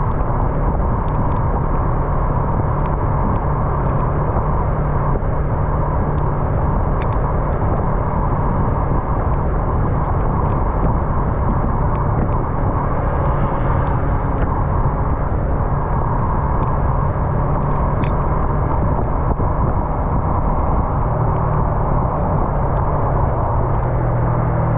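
Yamaha MT-03 motorcycle engine running steadily while riding, under a continuous rush of wind and road noise; the engine note shifts near the end.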